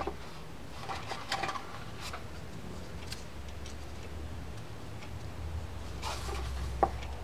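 Light scattered ticks and small metallic clicks of a micro screwdriver and a tiny screw working into a Shimano Corsair 400 baitcasting reel, with one sharper click near the end, over a low steady hum.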